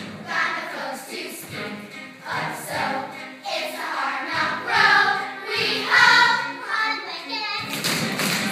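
Music with a group of voices singing together, the notes held and changing every second or so over a steady accompaniment.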